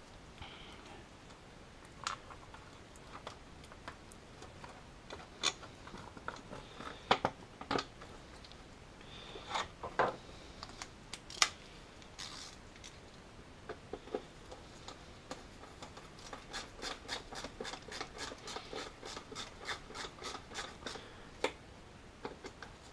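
Plastic engine-bay trim panel being pressed and clipped back into place: scattered clicks and knocks. Later a run of quick, even ticks, about five a second, as hands work on parts near the intake hoses.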